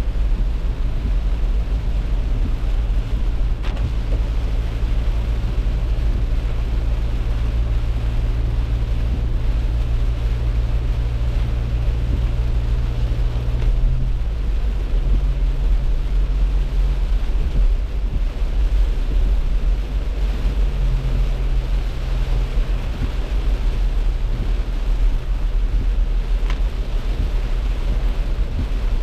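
Car driving on the road: a steady low rumble of engine and road noise with a constant engine drone, which steps up slightly in pitch about halfway through.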